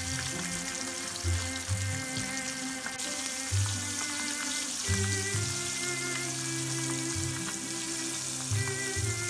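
Background music over a steady sizzling hiss of fish deep-frying in oil.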